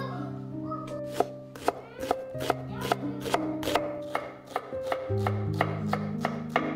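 Chef's knife chopping a shallot on a wooden cutting board: sharp knife strikes, about two to three a second, over background music.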